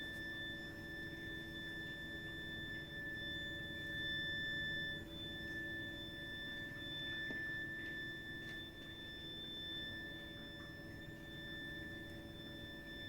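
Continuous high-pitched shrill whistle from a heating system's heat interface unit (HIU) and pipework: one steady tone with a fainter, higher overtone over a low hum. It is an abnormal fault noise that runs even when hot water and heating are not in use.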